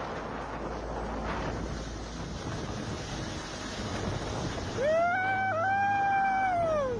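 Wind buffeting the microphone over the steady rush of wind-driven river ice and water. About five seconds in, a loud high-pitched cry rises, holds for about two seconds and falls away.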